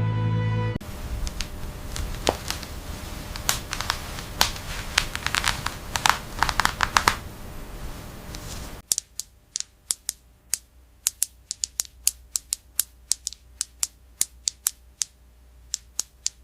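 A run of sharp, irregular clicks. Over the first half they sit on a steady hiss, at roughly three or four a second; in the second half they sound alone and sparser.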